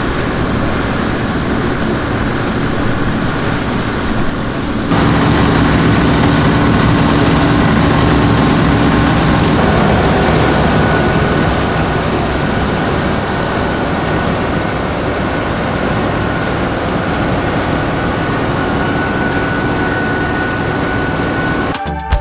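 Perkins V8 diesel of a Massey Ferguson 760 combine running steadily while harvesting. The sound jumps suddenly louder about five seconds in.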